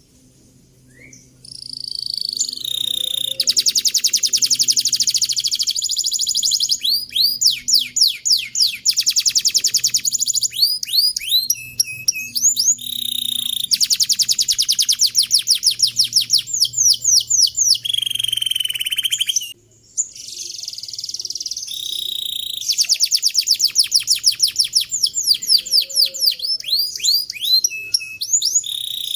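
Domestic canary singing a long, loud song of rapid trills and rolling runs, with a brief pause about two-thirds of the way through.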